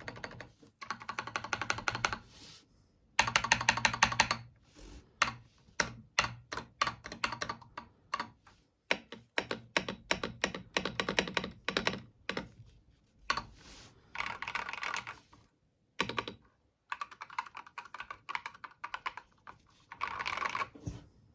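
Typing on a Redragon Surara mechanical keyboard fitted with Akko CS Wine Red linear switches and PBT keycaps, a clacky, poppy sound. Fast runs of keystrokes in bursts of a second or two, with short pauses and a few slower, separate presses near the middle.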